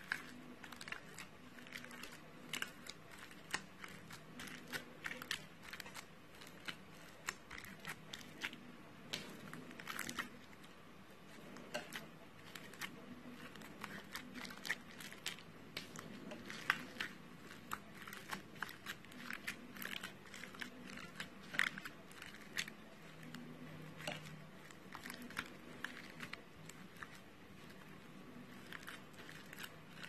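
Crunchy foam-bead slime being pressed and kneaded by hand: an irregular stream of small crunching pops and crackles as the beads are squeezed, with a few sharper clicks.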